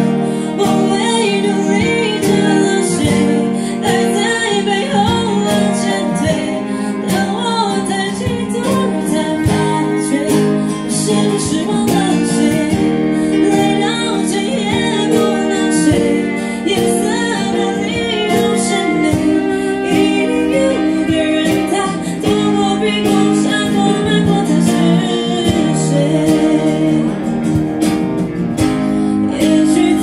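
Live acoustic performance: a woman singing into a microphone, accompanied by a strummed acoustic guitar and a cello.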